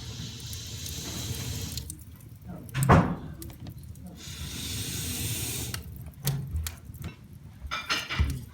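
Water running in two short spells, as from a household tap, with one loud knock about three seconds in. Wood fire in a fireplace crackling and popping throughout, with a cluster of pops near the end.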